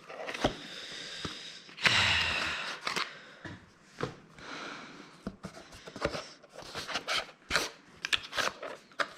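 Packaging and a cable being handled: scattered rustles and small clicks, with one louder rustle about two seconds in.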